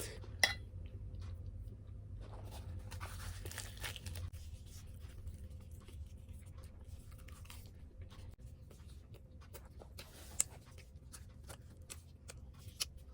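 A person eating close to the microphone: chewing, with soft tearing and crunching of fried puri bread, a few sharp clicks about half a second in, around ten seconds in and near the end, over a low steady hum.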